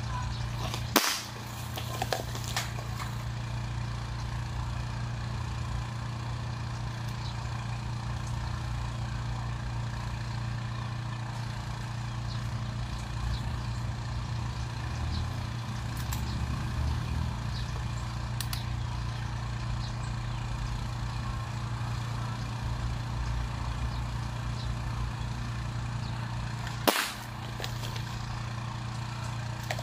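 Taurus dual-propellant airgun, charged with high-pressure air, firing twice: a sharp crack about a second in and another near the end, with a few light clicks shortly after the first shot. A steady low hum runs underneath.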